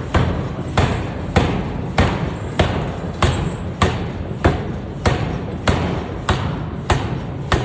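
Pneumatic forging air hammer striking in a steady rhythm, a little under two heavy blows a second, each blow ringing off briefly over a low rumble.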